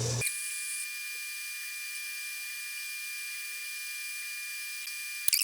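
Small machine-tool motor running with a steady high-pitched whine, with a few sharp clicks near the end.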